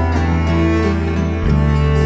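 Background music: sustained low string notes over a steady bass line that changes note about every second.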